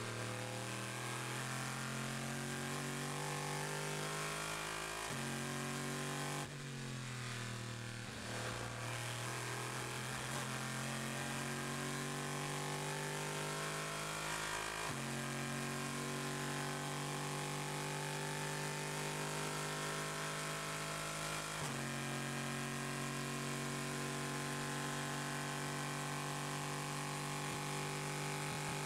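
Chevrolet Corvette C7.R GTE race car's V8 engine heard from inside the cockpit, accelerating hard at full throttle. The pitch climbs steadily and drops sharply three times, about five, fifteen and twenty-two seconds in, as the gearbox shifts up. There is a brief dip in the engine note between about six and eight seconds in.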